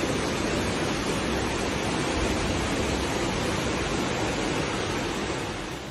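Muddy floodwater rushing in a steady torrent through an underground car park, fading slightly near the end.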